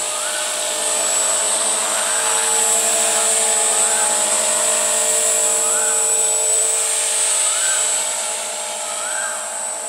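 Walkera V450D03 electric RC helicopter in flight: the steady whine of its motor and gears with the hum of the spinning rotor. It grows a little louder for a few seconds, then eases off near the end.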